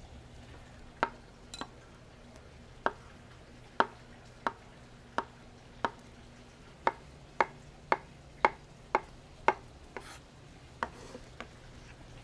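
Chef's knife chopping avocado on an end-grain wooden butcher block: a string of sharp knocks of the blade on the wood, a little under two a second, starting about a second in.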